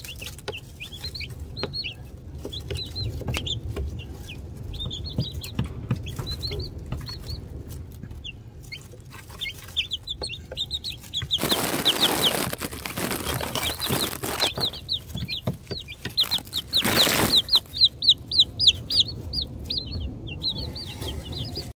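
Newly hatched Ameraucana chicks peeping: a steady run of short, high peeps that grows thicker and more insistent near the end. Two brief bursts of rustling noise come in the middle.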